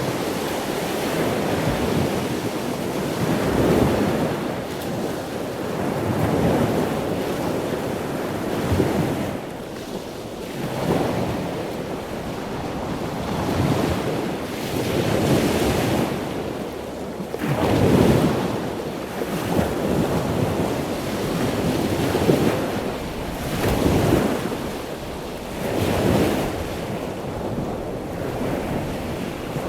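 Ocean surf: waves breaking and washing in continuously, the rush swelling and easing every couple of seconds.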